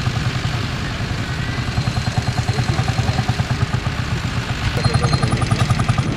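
Lanz Bulldog tractor's single-cylinder two-stroke hot-bulb engine running with a steady, rapid, even beat. About five seconds in it gets louder, with a sharper rhythmic clatter on top.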